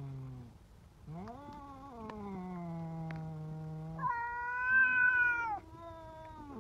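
Cats giving long, drawn-out yowls. A tabby cat makes low calls while licking a squeeze-tube treat, and a louder, higher-pitched cat call comes in the middle.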